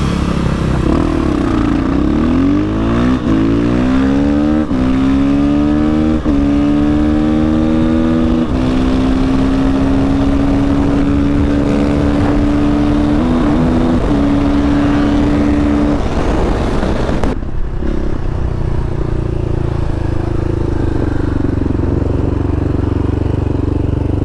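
KTM 500 EXC-F single-cylinder dirt bike engine accelerating hard, its pitch climbing and dropping back with each upshift four or five times, then holding a steady pitch at speed with wind rush. A bit past halfway the sound changes abruptly to the engine running at a lower, steady pitch.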